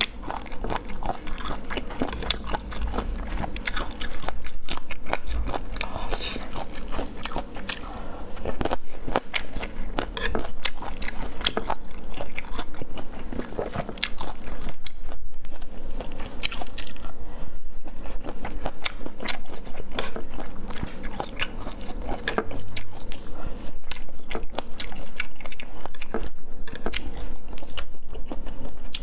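Close-miked eating: a person biting, chewing and crunching on spicy chicken feet, with dense irregular wet clicks and crackles throughout.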